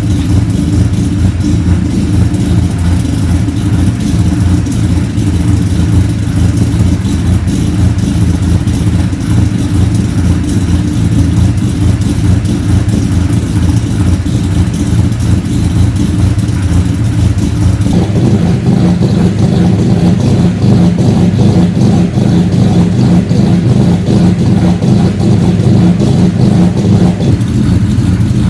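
Turbocharged Holden Commodore Ecotec V6 running through its new exhaust, which has a second resonator added to cut drone. It runs steadily at low revs, is raised to a higher steady speed about 18 seconds in, then drops back about 27 seconds in. The note is deep.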